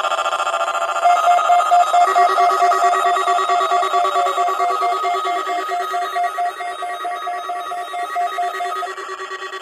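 Several NOAA weather alert radios sounding their alert alarms at once for a Required Monthly Test. Overlapping rapid beeping tones at several different pitches come in one after another, and one stops near the end.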